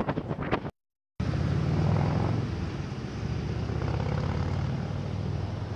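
Wind buffeting the microphone, cut off abruptly by an edit under a second in. Then a steady low engine drone under wind noise, easing slightly toward the end.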